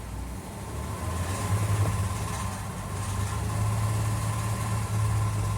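Honda Fit 1.4 running in gear on a lift, its engine and turning drivetrain giving a steady low hum that builds over the first couple of seconds, with a faint steady whine above it. This is a test run to reproduce a loud noise at 60–80 km/h, which the mechanic traces to an oversized nylon cable tie on the CV joint boot knocking a loose heat shield.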